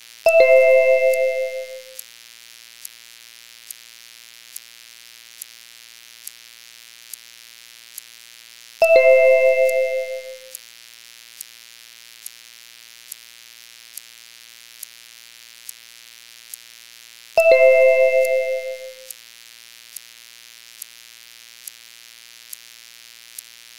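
A bell-like chime struck three times, about eight and a half seconds apart, each ding ringing out and fading over about a second and a half. Faint regular clicks, a little more than one a second, run under it over a low hiss.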